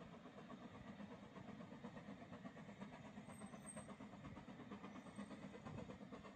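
Faint, steady rumble and hiss of a narrow-gauge steam locomotive working out of sight.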